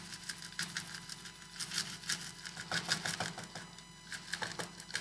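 Irregular light clicks and taps of hard rosin pieces and a container being handled, with a busier cluster around the middle.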